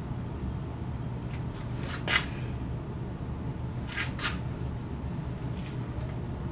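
Steady low room hum with a few short rustling clicks, the loudest about two seconds in and a pair around four seconds in.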